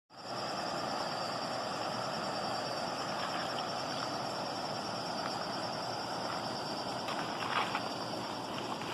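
River water rushing steadily, with a steady high-pitched whine running over it and a short louder splash of noise about seven and a half seconds in.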